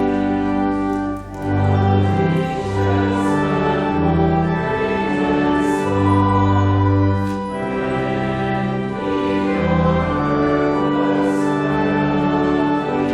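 Voices singing a slow hymn over held instrumental chords that change every second or two.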